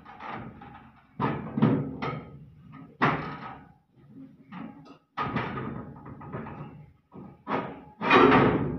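Irregular metal knocks and bangs, each ringing briefly, from hands-on work on a Swaraj combine harvester's thresher as its basket is fitted. The loudest hits come near the end.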